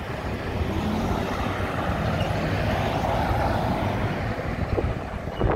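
Street traffic passing: a pickup truck towing a flatbed car trailer drives by. Its engine and tyre noise swell to a peak around the middle and ease off near the end.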